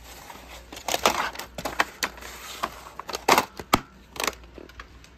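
Plastic VHS clamshell case and cassette being handled: a run of sharp plastic clicks and clacks as the tape goes into the case and the case is snapped shut and moved about. The loudest clacks come about a second in and around three and a half seconds in.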